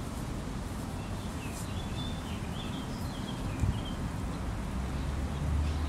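Outdoor ambience with small birds chirping: a run of short, high chirps in the middle. A low rumble swells near the end.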